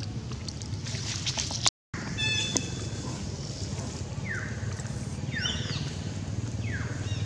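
Young long-tailed macaque giving short, high squealing calls that fall in pitch, about four of them in the last few seconds, after one higher squeak. A steady low rumble runs underneath, and the sound drops out briefly about two seconds in.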